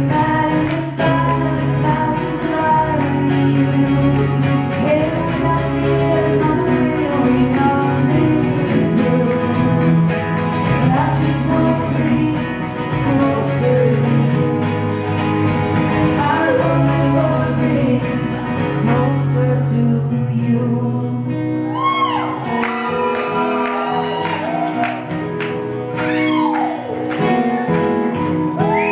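Live band performance of a folk-rock song: a woman singing lead over strummed and picked acoustic guitars.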